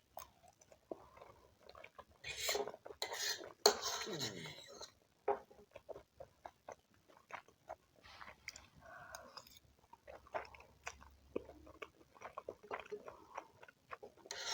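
Close-miked eating sounds: a utensil clicking and scraping against a bowl, with chewing in between. There is a louder, busier run of clinks and scrapes about two to five seconds in.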